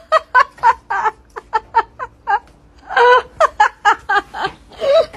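A person laughing in a run of short, quick bursts, with a longer, louder peak of laughter about three seconds in.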